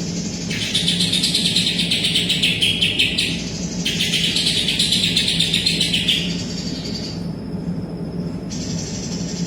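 Green leafbird (cucak ijo) singing in rapid, dense chattering phrases: two runs of about three seconds each, then a shorter one near the end. The song carries notes imitated from the kapas tembak bird.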